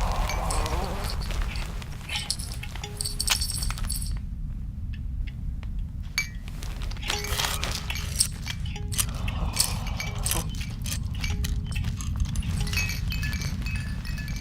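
Foley sound effects: scattered metallic and glassy clinks and jangles, with clusters of bright tinkling about three seconds in and near the end, over a steady low rumble.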